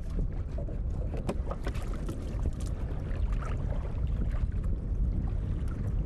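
Steady low rumble of wind and sea water around a small wooden dugout canoe on open water, with scattered small knocks and clicks from handling fishing line in the boat.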